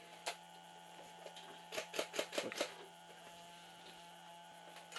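Airsoft gunfire: a single sharp crack just after the start, then a quick string of about six sharp cracks about two seconds in, over a steady low electrical hum.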